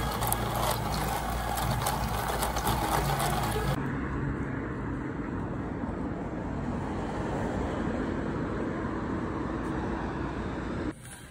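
Busy indoor background with steady tones and hum for the first few seconds. It cuts abruptly to steady street ambience with road traffic noise.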